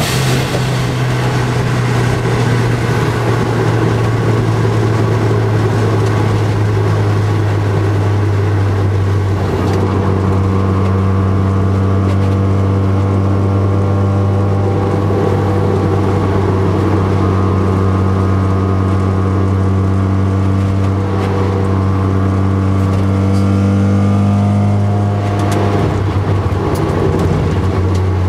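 Mazda RX-7 FD's single-turbo 13B rotary engine running at steady cruising revs, heard from inside the cabin over road and wind noise. The engine note dips slightly about ten seconds in and again a few seconds before the end.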